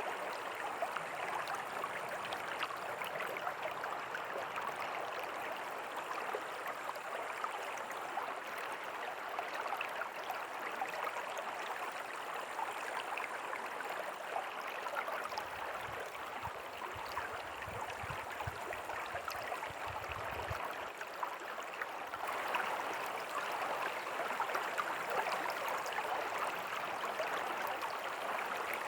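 A river flowing steadily: a continuous rushing of water. A low rumble comes in underneath for several seconds midway.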